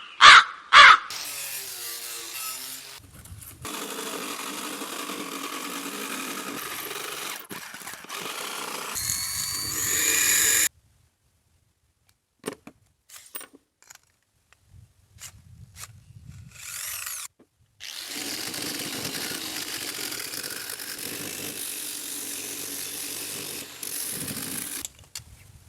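Power tool working wood, running in several stretches of a few seconds each that start and stop abruptly, with short gaps between. The stretch about ten seconds in rises in pitch and loudness before cutting off. A crow caws at the very start.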